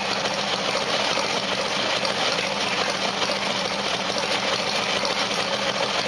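Harley-Davidson motorcycle engine idling steadily.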